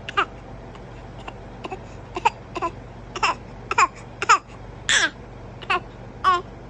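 A baby making a string of short, voiced fake coughs: about a dozen brief sounds, each dropping in pitch, coming about every half second, the loudest and longest about five seconds in.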